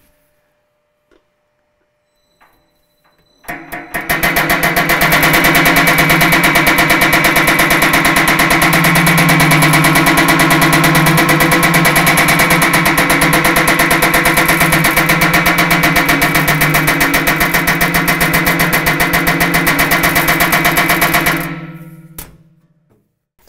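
Power hammer fitted with a linear stretching die pounding a strip of sheet steel in rapid, even blows, pre-stretching the metal along the line where a bead will go. The hammering starts about three and a half seconds in and stops a couple of seconds before the end.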